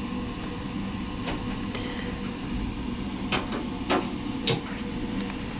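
Three sharp knocks a little over half a second apart, with a few fainter clicks before them, over a steady low hum.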